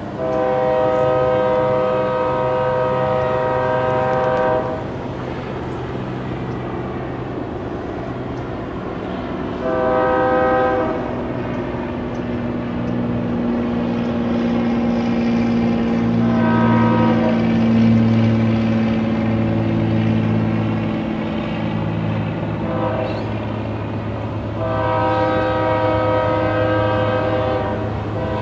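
Union Pacific diesel freight locomotive sounding its multi-note air horn in four blasts: a long one at the start, two shorter ones in the middle and another long one near the end. The locomotive's engine hums steadily underneath and grows louder as the train approaches.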